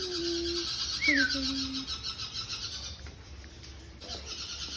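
Many caged birds chattering and chirping together in rapid high notes, which break off about three seconds in and return briefly near the end. A short falling whistle sounds about a second in.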